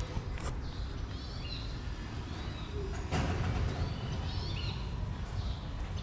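Small birds chirping in short quick groups of high notes three times, over a steady low rumble. About three seconds in there is a soft thump followed by a brief rustle.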